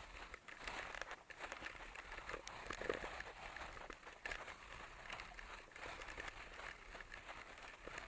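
Footsteps crunching in snow, irregular and uneven.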